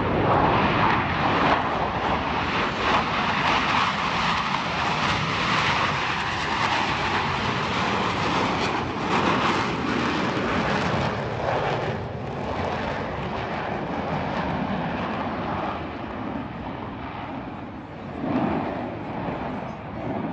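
Jet noise from the Blue Angels' four-jet Diamond of F/A-18 Super Hornets flying past, a broad steady roar that is loudest at first and slowly fades away over the second half.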